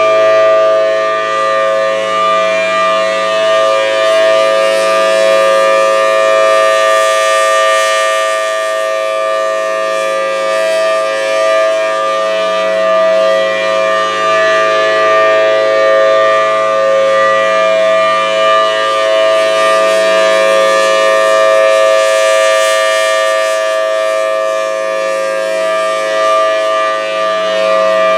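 Thunderbolt 1000T tornado siren sounding a steady two-note chord at full speed, its level swelling and fading slowly as the rotating head sweeps past. The steady tone, with no rise and fall in pitch, is the siren's alert signal.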